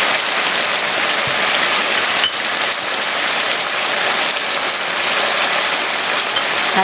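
Chicken and freshly added potato cubes sizzling steadily in a hot pan.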